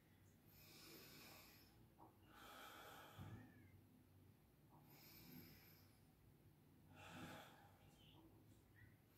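Faint, slow, deep breathing: a person drawing in and letting out breath four times, each breath a soft airy hiss about a second long, as for lung auscultation.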